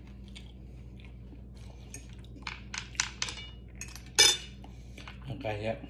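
Metal fork tapping and clinking against a ceramic dinner plate: a few light taps, then one sharp ringing clink about four seconds in.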